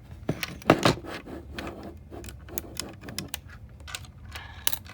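Plastic Lego pieces of a puzzle box clicking and clattering as it is handled and a part is flipped over, with irregular sharp clacks, the loudest about a second in and again near the end.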